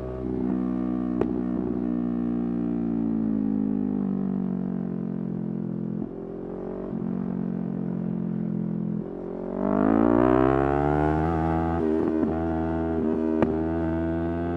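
Yamaha R3's parallel-twin engine under riding load. The revs sink slowly over the first few seconds and hold steady. After a brief dip about nine seconds in, they climb sharply under throttle and stay up, with a couple of sharp clicks.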